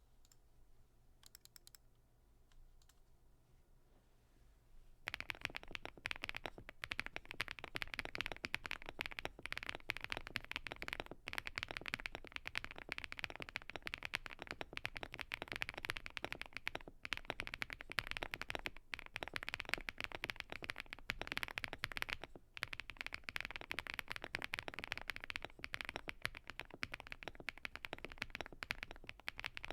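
PETBRICK 65 mechanical keyboard, leaf-spring mounted with a POM plate, Dry Studio Crystal Pink switches and thick PBT keycaps, typed on fast and continuously. There are a few seconds of near-quiet with faint clicks before the typing starts, about five seconds in.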